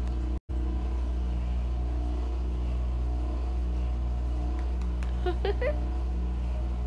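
A steady low hum, dropping out for a split second near the start, with a brief faint chirp about five seconds in.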